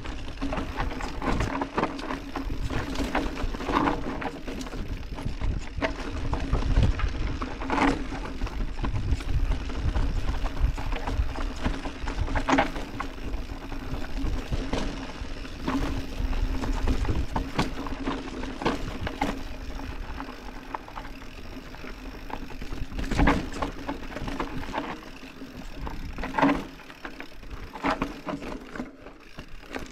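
Mountain bike rolling slowly down a rough dirt trail: tyres on dirt, with irregular knocks and rattles from the bike over roots and rocks and a low rumble on the camera. The rumble eases near the end as the bike slows almost to a stop.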